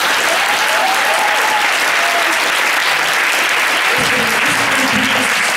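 Large audience applauding steadily, with a few voices calling out over the clapping.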